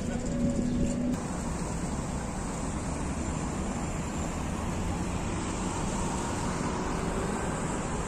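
Steady city street traffic noise, a continuous wash of passing cars. A faint engine hum in it stops abruptly about a second in.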